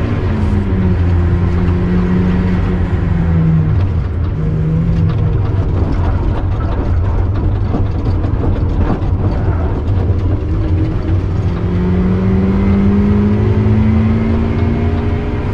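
Turbocharged Mazda MX-5 four-cylinder engine driven hard on track. Its note falls in steps over the first few seconds and fades under a steady rushing noise through the middle, then climbs steadily in pitch for several seconds before dropping at a gear change right at the end.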